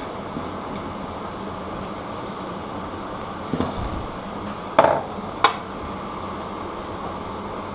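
Three short metallic clicks and clinks of a tool against a bike cassette as it is snugged down, the middle one the loudest, over a steady fan-like hum.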